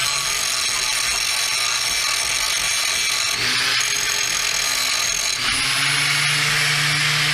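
Power grinder grinding paint off a steel bar down to bare metal, preparing it for welding. It runs steadily with a high whine whose pitch shifts as the load changes, about a third of the way in and again past halfway.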